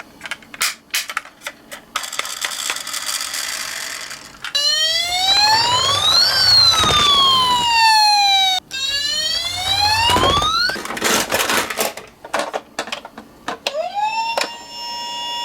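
Electronic siren of a toy emergency-vehicle minicar: a wail that rises quickly and falls slowly, sounding twice from about four seconds in. Clicking and rattling come before and after it. Near the end another siren tone starts and holds steady.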